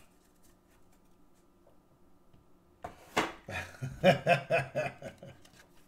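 Faint flicks of trading cards being thumbed through. About three seconds in, a man laughs: a sharp outburst followed by a few short chuckles.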